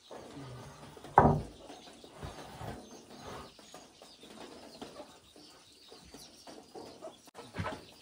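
A wooden plank being handled on a wooden bench, with a loud knock about a second in, smaller knocks and scraping after it, and another knock near the end.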